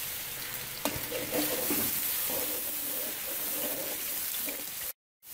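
Cornflour-coated chicken pieces deep-frying in hot oil in a metal wok, a steady sizzle with a sharp knock about a second in. The sound drops out for a moment near the end.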